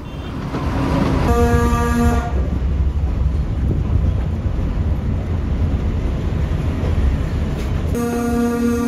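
Diesel locomotive of the Bhakra–Nangal train sounding its horn in a blast of about a second, a little over a second in. It sounds it again near the end, held, over the steady low rumble of the moving train.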